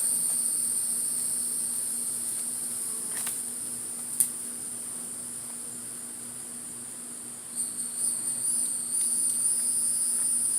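Agitated honey bees buzzing around an opened hive in a steady low hum. A high, steady insect trill runs behind it. There is a sharp click about four seconds in and some irregular handling noise in the last few seconds.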